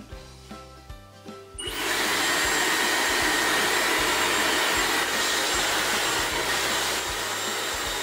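Dyson Supersonic hair dryer switched on about two seconds in and blowing steadily: a loud rush of air with a thin high whine over it, dipping a little near the end.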